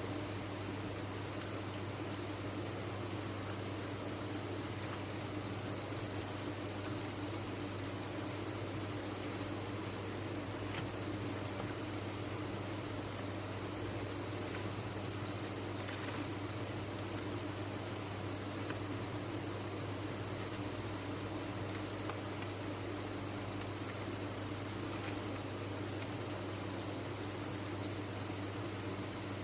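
A mass of farmed crickets chirping together in a dense, steady, high-pitched chorus with no breaks, over a faint low hum.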